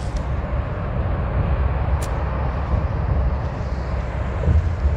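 Steady low rumble of a Greyhound coach's engine and tyres heard from inside the passenger cabin while driving, with one short sharp click about two seconds in.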